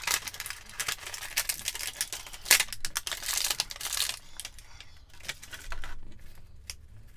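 Plastic blister packaging being handled as an action figure is pulled out of its tray: a dense run of crackling and sharp clicks for about four seconds, then only a few scattered clicks.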